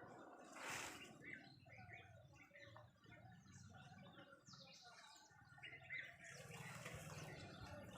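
Faint small birds chirping and calling, scattered short notes. There is a brief rustling burst about a second in, and a low steady hum sets in a little past halfway.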